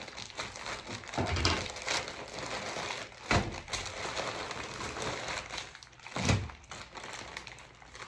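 Plastic mailer bags crinkling and rustling as they are handled and opened, with a few dull thumps about one, three and six seconds in.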